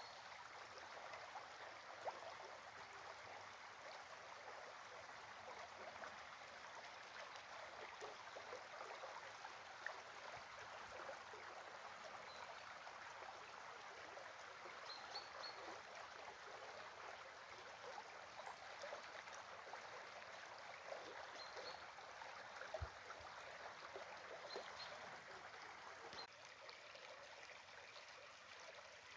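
Small stream flowing steadily and faintly, with a few short high chirps now and then.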